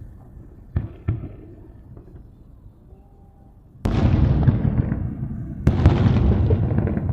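Aerial fireworks shells bursting: two small pops about a second in, then a loud boom nearly four seconds in that dies away slowly in a rumbling crackle, and a second loud burst nearly six seconds in.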